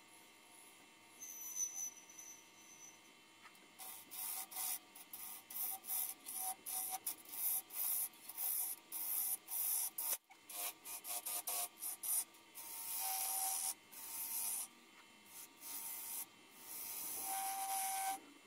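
Turning gouge cutting into spinning English yew on a wood lathe: a string of short scraping cuts, then a few longer sustained passes near the end, over the faint steady hum of the lathe.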